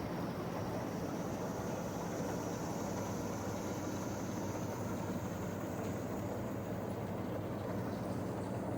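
1976 Allis-Chalmers Gleaner F combine running steadily, a constant low machine hum with a faint high whine that slowly rises in pitch and fades near the end.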